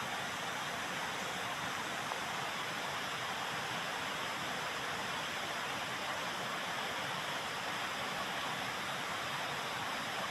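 A steady, even hiss with no distinct events, like running water or wind noise.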